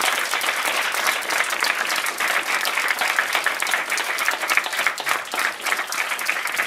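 A roomful of pupils and staff applauding: many hands clapping steadily.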